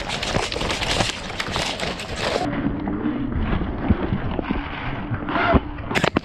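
Footsteps and rustling of clothing and kit from a player on the move, a dense run of irregular steps and knocks. About two and a half seconds in the sound turns muffled, and a few sharp clicks come near the end.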